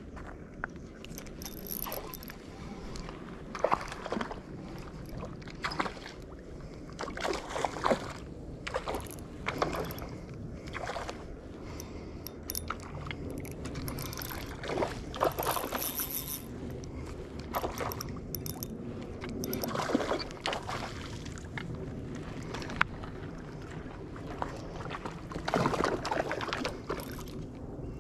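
A hooked trout splashing and thrashing at the surface in shallow water as it is reeled in on a spinning reel, giving irregular splashes and clicks over a steady low rush.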